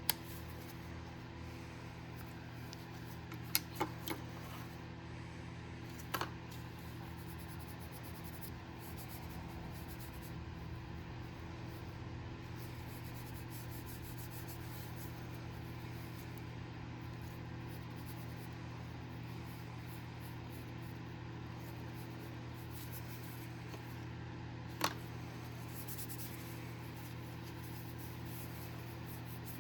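A steady machine hum, like a small electric motor or fan running, broken by a few sharp clicks: three quick ones about four seconds in, one around six seconds and one near the end.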